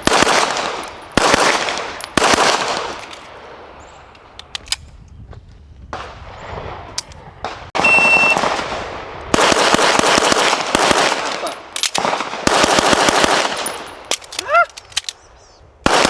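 Pistol gunfire in a USPSA stage: a few single shots, then a short steady shot-timer beep about eight seconds in, followed by fast strings of shots with short pauses between them.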